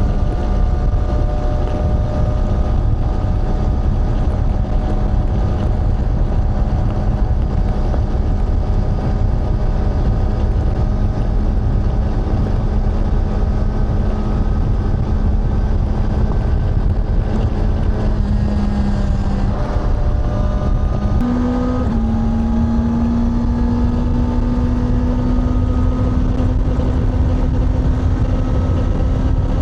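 Honda CBR650R's inline-four engine and exhaust running at a steady cruise over a heavy low rumble. About 20 seconds in the note dips and breaks off briefly, then comes back at slightly higher revs and climbs slowly.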